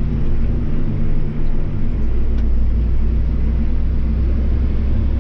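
A vehicle engine running steadily with a low rumble; its drone deepens and grows stronger about two seconds in.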